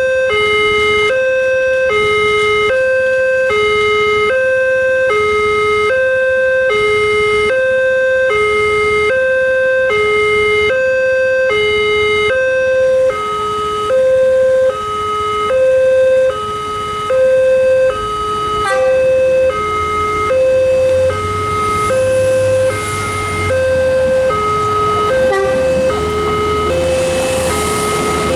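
Railway level-crossing warning alarm sounding a steady two-tone electronic signal, a higher and a lower note alternating about once a second, while the crossing is closed for an approaching train. A low rumble joins in past the middle.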